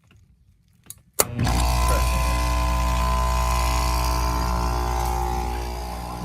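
A sharp click as the reset button on a Lennox HP22 heat pump is pressed, and the outdoor unit starts at once, running with a steady loud hum and a whine. The button keeps tripping and needs resetting to get the unit running again, a chronic fault.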